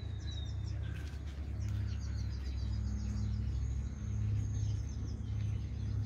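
Birds chirping over and over in short high calls, above a steady low rumble that is the loudest sound.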